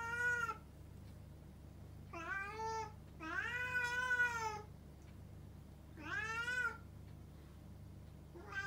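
Male house cats yowling at each other in a fight standoff: five drawn-out, wavering calls, each rising and then easing off, the longest about three to four and a half seconds in.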